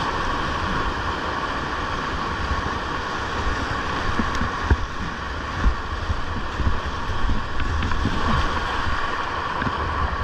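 Steady rush of river whitewater, with wind buffeting the microphone and a few dull knocks around the middle.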